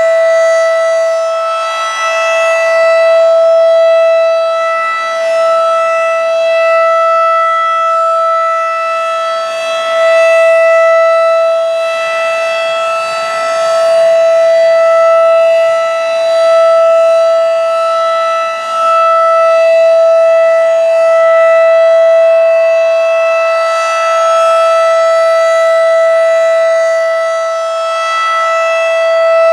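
Federal Signal 2001-DC electromechanical warning siren sounding its Alert signal for a siren test: one unbroken steady tone that holds its pitch, swelling and fading in loudness every few seconds as the rotating head sweeps past.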